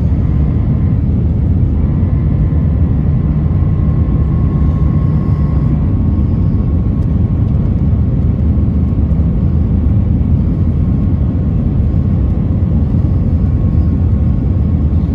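Steady roar of jet engines and rushing air heard inside the cabin of an easyJet Airbus A320-family airliner descending on approach with its flaps extended. A faint steady whine runs through it, clearest in the first few seconds.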